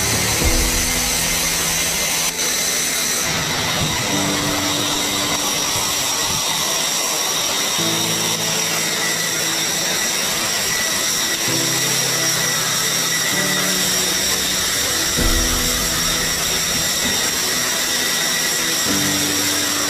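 F-35 fighter's F135 turbofan engine idling on the ground: a steady high-pitched whine over a dense hiss. Background music with sustained chords plays underneath.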